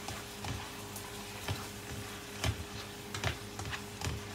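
Spatula scraping and knocking against a non-stick frying pan as chicken and shrimp are stirred, in irregular strokes over a light frying sizzle. A steady low hum runs underneath.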